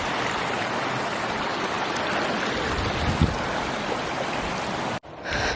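Steady rushing of flowing stream water, with a couple of low thumps about three seconds in.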